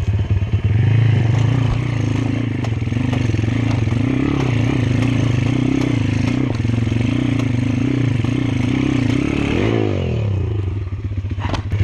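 Pit bike's single-cylinder engine revving hard and labouring as it climbs a steep, rutted hill, with the chassis rattling over the ground. About ten seconds in the revs drop away.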